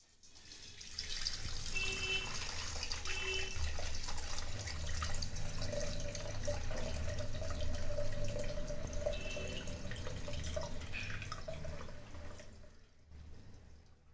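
Boiled herbal hair oil being poured from a wok through a steel mesh strainer into a stainless steel pot, straining off the fried herbs. The pouring is steady: it starts about a second in and fades out near the end.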